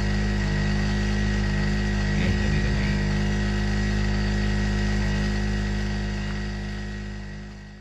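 Generator engine running steadily, a constant low hum with several fixed tones, fading out near the end.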